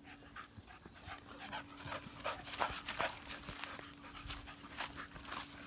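A puppy and a larger dog play-fighting, with quick, irregular panting and short scuffling sounds.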